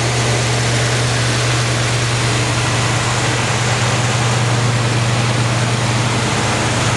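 1969 Camaro SS/RS's factory-stock V8 engine idling steadily, heard close up in the open engine bay.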